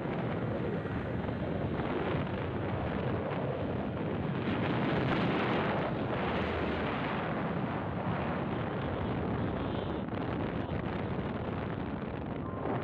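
Wind buffeting the microphone on a Yamaha RX-King motorcycle riding at speed, a dense steady rush with the bike's two-stroke engine and road noise mixed in. It swells a little about four to seven seconds in.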